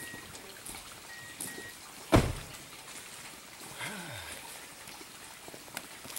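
A quiet lull broken by one sharp thud about two seconds in. A faint, thin high whistle sounds twice in the first two seconds.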